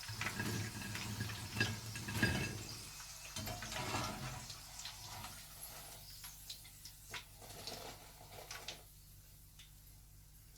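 Hot deep-frying oil sizzling and crackling in the pan with scattered pops, dying down gradually as the flame is turned low.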